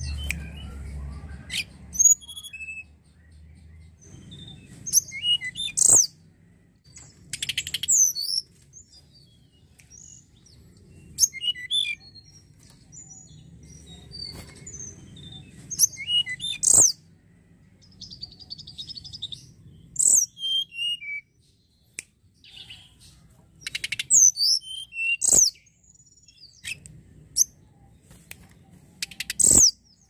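Tledekan gunung (blue flycatcher) singing in short separate phrases of clear, high whistled notes, falling slurs and brief rapid trills, with pauses of a second or two between phrases.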